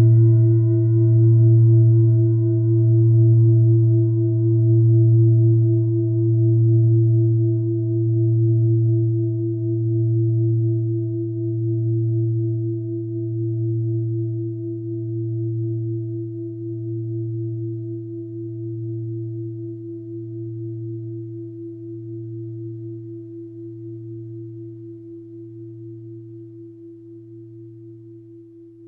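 A mindfulness bell ringing out and slowly fading after a single stroke, with a slow regular pulse about every two seconds. The higher overtones die away within the first ten seconds or so, leaving the low hum and one middle tone.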